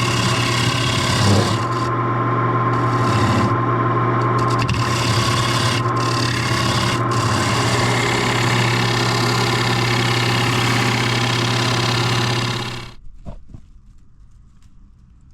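Wood lathe running, its motor humming steadily, while a gouge cuts into a spinning bowl blank with a continuous scraping hiss. Both stop abruptly near the end.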